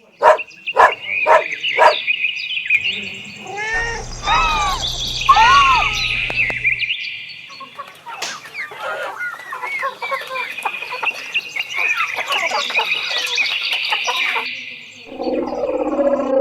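Chickens clucking amid a steady chatter of high chirps.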